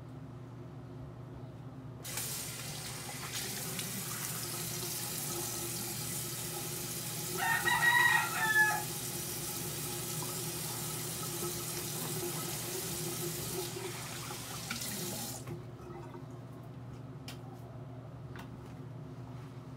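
Sink tap running for about thirteen seconds as the face is rinsed at the sink. About eight seconds in, a rooster crows once, the loudest sound here.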